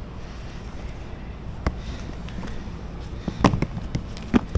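Heavy load-bank cables being handled, their connectors knocking sharply on a hard surface: once about a second and a half in, a quick cluster of knocks around three and a half seconds, and another near the end, over a steady low hum.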